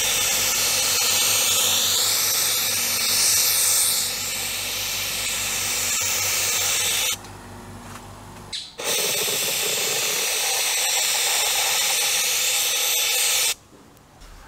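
Hand-held blowing tool, such as a heat gun, running steadily: a loud rush of air over a motor hum. It drops out about seven seconds in, comes back about a second and a half later, and stops abruptly shortly before the end.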